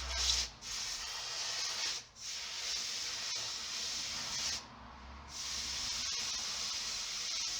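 Abrasive sanding of a steel knife blade: a steady rasping hiss in three long passes, with short breaks between them.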